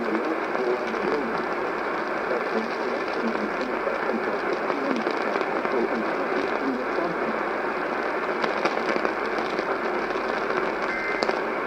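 Weak AM radio reception: a steady wash of static and crackle with a faint voice buried in it. Near the end a pair of steady high data tones starts up, the warbling burst that opens an Emergency Alert System SAME header.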